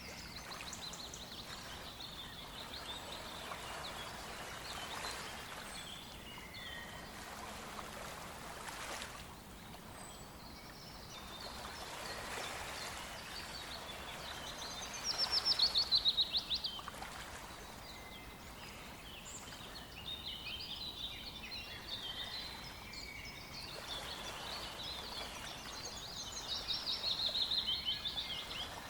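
Several songbirds singing over a faint, steady rush of a small river. The loudest is a fast, descending trilled phrase, heard twice: about halfway and again near the end.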